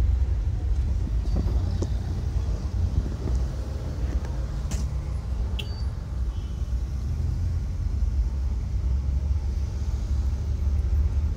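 Steady low rumble of an older Toyota car's engine and tyres heard from inside the cabin while it drives, with a couple of faint sharp clicks about halfway through.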